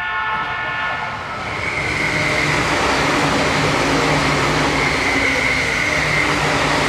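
JR East E657 series limited-express electric train passing close by at speed: a loud, steady rush of wheels and air with a whine running through it. The last of its horn fades out in the first second or so.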